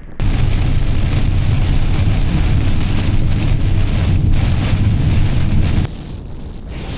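Loud, steady rush of storm wind and rain noise, heaviest in the low end like wind on the microphone, starting abruptly just after the start and cutting off suddenly about six seconds in.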